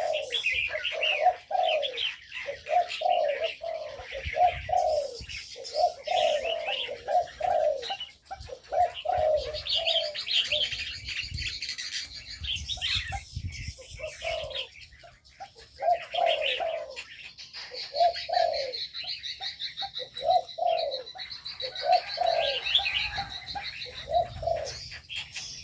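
Spotted doves cooing over and over, several birds overlapping, with smaller birds chirping above them and a long high rapid trill through the second half.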